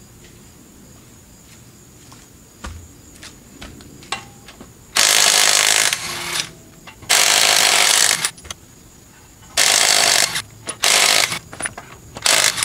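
Power impact wrench run in five short bursts, one for each lug bolt, as a wheel is taken off the car. There are a few light knocks before the first burst.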